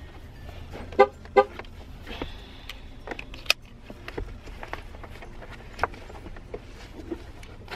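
Two short car-horn toots, about a second in and less than half a second apart, followed by scattered clicks and rustles of a child car-seat harness being fastened.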